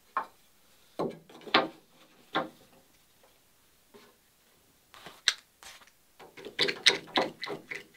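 A few sharp wooden knocks as a jack block is set against a boat mold. From about five seconds in comes a run of quick ratcheting clicks as a one-handed bar clamp is squeezed tight on it.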